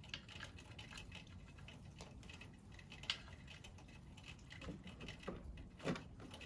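Faint, scattered clicks and taps of a hand wrench on metal while a rusty bottom fork bolt is being worked loose, with a sharp click about three seconds in and a few knocks near the end.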